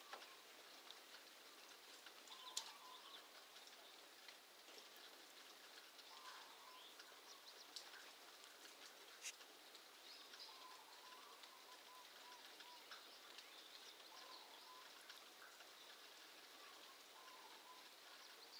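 Faint, distant bird calls, short wavering notes repeating every couple of seconds, over a light patter of rain with a few sharp drip ticks.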